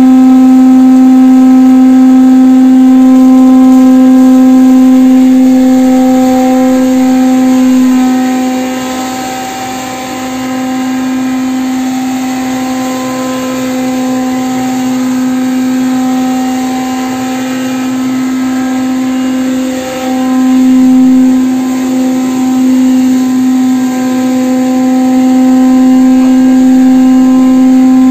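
Elbow-type spice pulverizer with a 10 hp electric motor running while grinding dried red chillies: a loud, steady hum at one constant pitch with overtones, easing a little in the middle.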